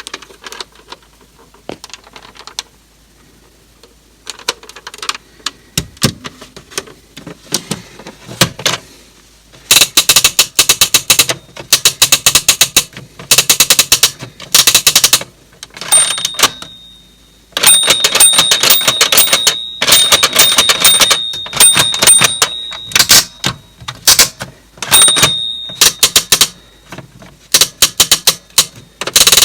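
1990s Mickey Mouse child's toy typewriter being typed on. There are scattered key clicks at first, then fast runs of key strikes in bursts from about ten seconds in. A steady high tone sounds through much of the later typing.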